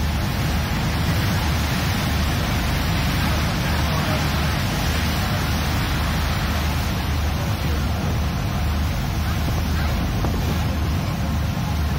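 Thames Clipper catamaran riverbus underway, a steady low engine drone under the rush of water along the hull, heard from inside the passenger cabin.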